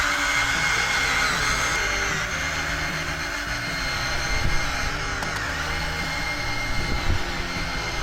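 Hydraulic RC excavator's pump motor whining steadily, with a couple of light knocks about halfway through and near the end.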